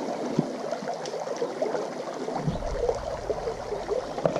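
Shallow creek water running and gurgling, with small crackling splashes throughout. A low rumble comes in about two and a half seconds in.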